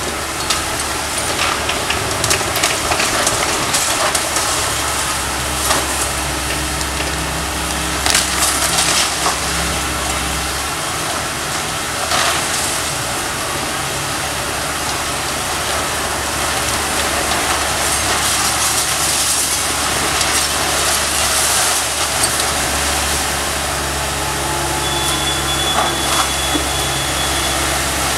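Komatsu PC160LC hydraulic excavator running steadily while its demolition pole tears into a wood-frame house. Timber cracks and splinters and debris crashes down in bursts: a few near the start, a loud cluster about eight seconds in, another a little after that, and a longer run of crashing later on.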